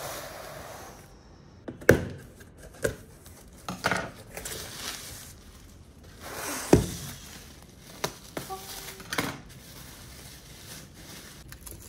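Cardboard shipping box being opened by hand, with several sharp knocks and scraping from the flaps and box walls, then bubble wrap rustling as the wrapped package is pulled out. The loudest knocks come about two seconds in and just before seven seconds.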